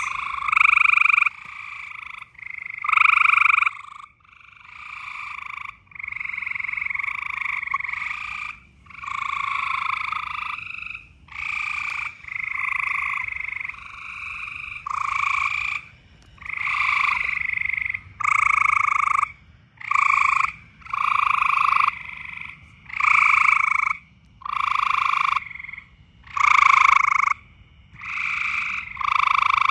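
Frogs giving loud mating calls, one call about every one to two seconds, each lasting about a second with short gaps between.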